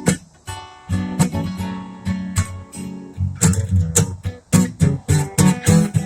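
Music: an acoustic guitar strummed in chords that ring and fade, changing to quicker, steady rhythmic strumming of about three strokes a second from about halfway.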